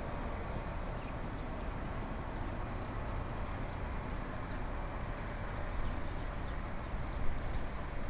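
Distant ATR 72-500 twin-turboprop airliner on the runway, a steady drone of its propellers and engines mixed with wind noise on the microphone.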